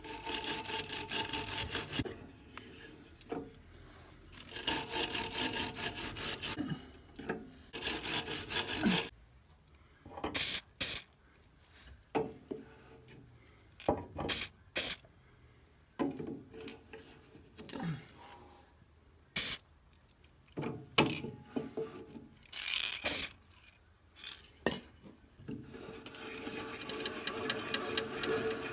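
Hand-tool scraping and rasping in long strokes: three strokes of a couple of seconds each, then short scrapes and knocks, then a steadier scraping near the end.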